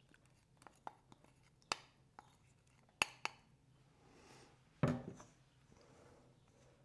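Kitchen utensil clinks: a metal spoon scraping and tapping against a small bowl and a stainless steel mixing bowl, several short sharp clicks, then one louder, duller knock just before five seconds in.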